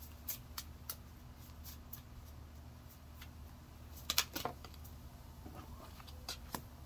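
Tarot cards being shuffled and handled: scattered sharp card snaps and flicks, with a louder flurry about four seconds in.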